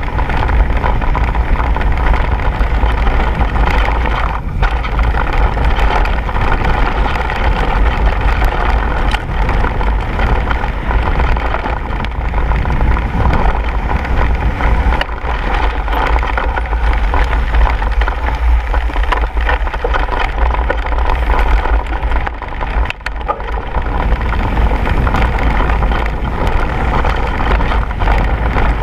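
Mountain bike descending a dirt and gravel track: tyres crunching over loose ground and the bike rattling and knocking over bumps, under a steady heavy rumble of wind on the action camera's microphone. There is a brief lull a little past the middle.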